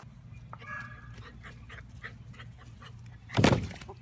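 A dog making faint whines over a steady low hum, with scattered light ticks, then one short, loud burst of noise about three and a half seconds in.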